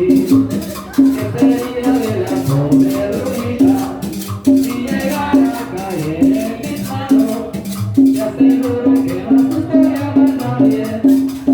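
Cumbia music playing with a steady beat, a repeating bass line and shaker percussion.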